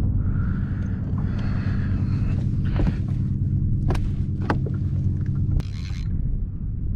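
A steady low mechanical hum on a small fishing boat, with a few sharp knocks and clunks as a redfish is handled over a landing net on the deck.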